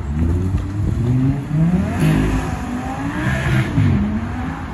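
A supercar engine accelerating hard away, its pitch climbing and dropping back at each gear change.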